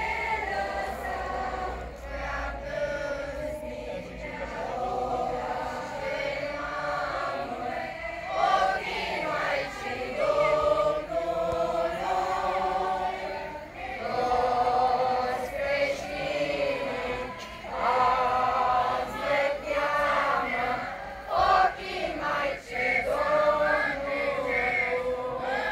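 A group of men's and women's voices singing a religious song together, in phrases with brief pauses between them.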